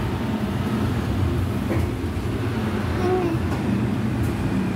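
Steady low rumble of a motor-vehicle engine running.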